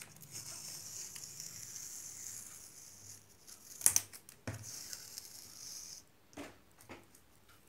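Hands handling a paper drawing sheet on a table while peeling off a paper circle mask. A faint steady hiss runs until about six seconds in, with two sharp taps about four seconds in and a few light ticks near the end.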